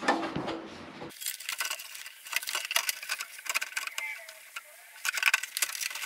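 Sheet-metal furnace blower housing being slid back into the furnace cabinet: a run of light metallic clinks, ticks and scrapes, with a brief faint scraping squeal about four seconds in.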